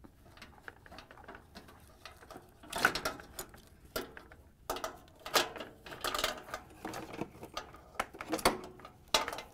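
Handling noise from a refrigerator water inlet valve assembly: irregular clicks, rattles and rustles of its plastic connectors and sheet-metal bracket as gloved hands work the wire harness free, loudest about three seconds and six seconds in.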